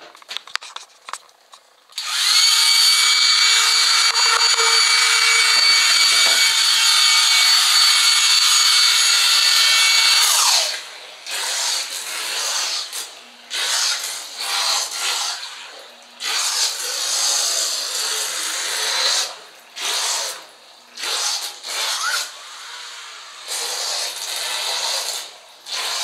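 Handheld hair dryer switched on about two seconds in, running with a steady whine. About ten seconds in it goes into a filled bathtub: its pitch drops and it keeps running underwater, churning the water in uneven surges, with no GFCI trip cutting it off.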